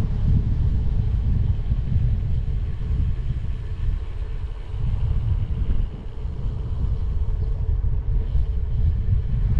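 Wind buffeting the microphone of a bicycle-mounted or body-worn camera while riding: a loud, uneven low rumble with a faint steady hum above it.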